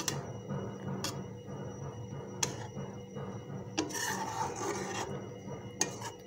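Rasping, rubbing noise with a few sharp clicks and a brief hissy scrape about four seconds in, over a steady low hum.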